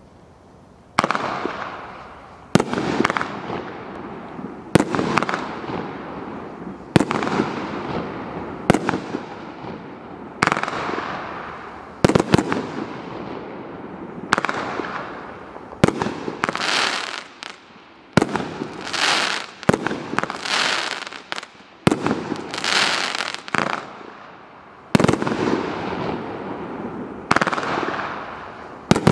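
Kripton Green Mamba fireworks cake firing its shots one after another, roughly every one and a half to two seconds. Each is a sharp bang followed by a fading crackling tail. Through the middle the tails turn higher and hissier.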